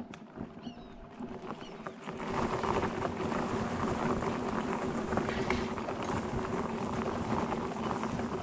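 Wheelchair wheels rolling over a crushed-shell gravel path, crunching and crackling, with a steady hum underneath; the crunching grows much louder about two seconds in. A few bird chirps near the start.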